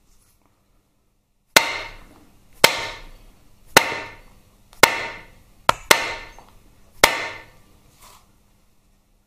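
Nylon dead-blow hammer tapping the end of a Harley-Davidson Twin Cam transmission main drive gear to drive it out through its bearing in the case: about eight blows roughly a second apart, two in quick succession around the middle and the last one light, each followed by a short ring.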